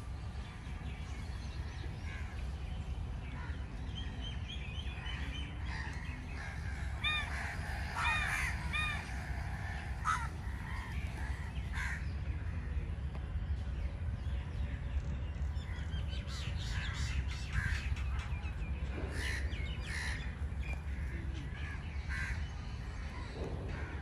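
A flock of house crows cawing, with many short calls overlapping, busiest about a third of the way in and again in the last third, over a steady low rumble.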